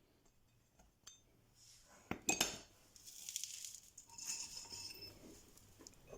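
Metal engine parts and hand tools clinking and knocking during reassembly of a scooter's piston and cylinder: a light click, then sharp knocks about two seconds in, followed by a run of light metallic clinks.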